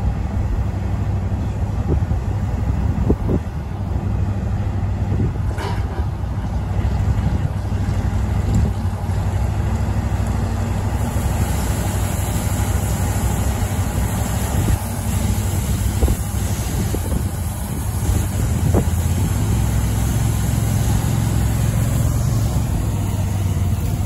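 Diesel tractor with a grain cart running steadily, unloading wheat into a semi grain trailer through its auger, with wind buffeting the microphone.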